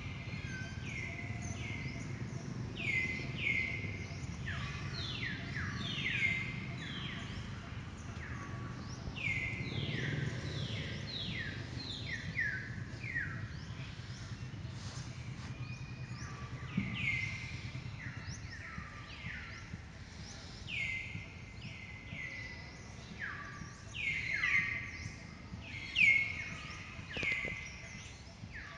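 A chorus of birds calling: many short, high chirps, each falling in pitch, overlapping without a break, over a low steady rumble.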